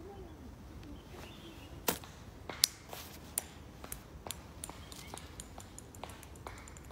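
A run of sharp clicks: two loud ones about two seconds in, then fainter ones coming faster and faster until they blur into rapid ticking near the end.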